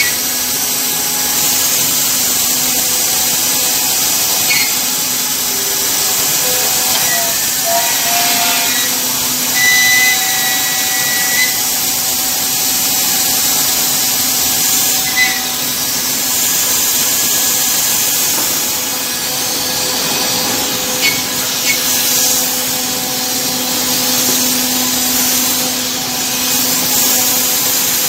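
CNC contour-cutting machine with a high-speed router bit cutting curved parts through a stack of wooden boards. It makes a loud, steady, hissing cutting noise over a constant machine hum.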